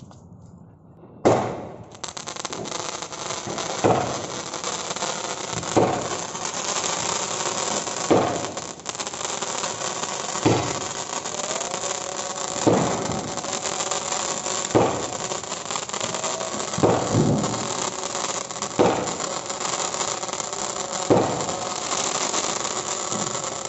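Sunshine-brand 12-shot sky shot firework cake firing: about ten sharp launch pops, roughly one every two seconds, over a continuous hiss. The cake sold as twelve shots fires only ten.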